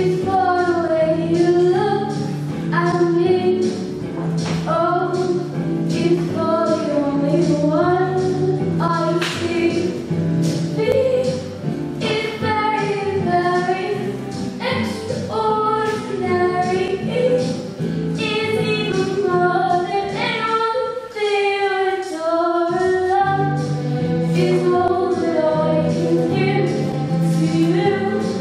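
A girl singing a song into a handheld microphone over accompanying music.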